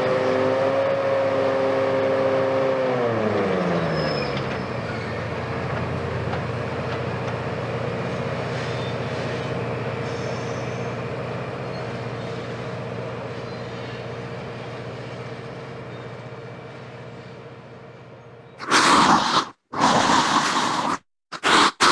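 Hitachi Kiesel KMC520 high-reach demolition excavator running at high revs with a steady whine. About three seconds in the revs drop, and it settles to a lower, steady drone that fades away slowly. Near the end, loud, choppy bursts of a different sound cut in.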